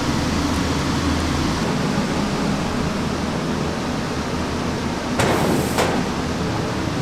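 Steady hum and rushing background noise. About five seconds in comes a short crinkling scrape as a vacuum-packed cut of meat is handled in a steel tray on a stainless-steel counter.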